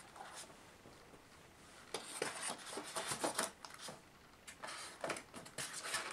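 Sections of model railway track being handled and pressed into a moulded foam box tray: light plastic clicks and scraping rustles, in two short spells starting about two seconds and four and a half seconds in.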